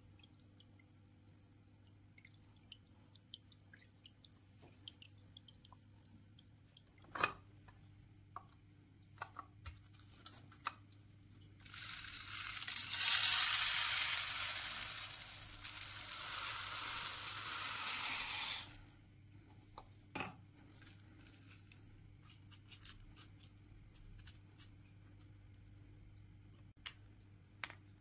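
Black granular plant soil poured from a bowl into a clear plastic box, a loud rattling hiss of grains that lasts about seven seconds in the middle. Scattered light knocks and clicks of the plastic box and bowl being handled come before and after the pour.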